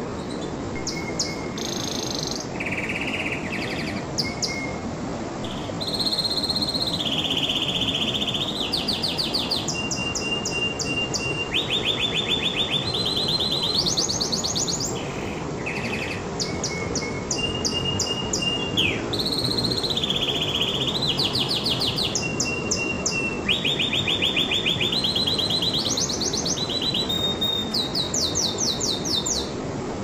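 Domestic canary singing: tours of rapid, evenly repeated notes, each series held for a second or two at one pitch before jumping to a higher or lower one, with short single whistles between. A steady low background hiss runs underneath.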